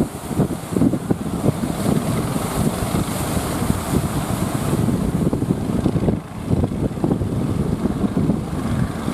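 Strong wind buffeting the microphone in uneven gusts, mostly a low rumble, with a brief lull about six seconds in.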